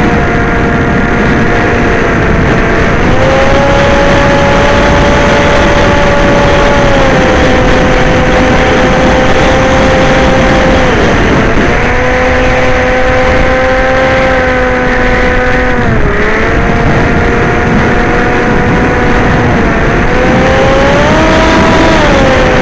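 Electric motors and propellers of an FPV drone whining steadily. The pitch steps up and down several times as the throttle changes, dipping sharply twice.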